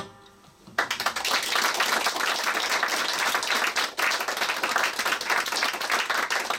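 Audience applauding, starting about a second in after a short hush that follows the song's last guitar chord.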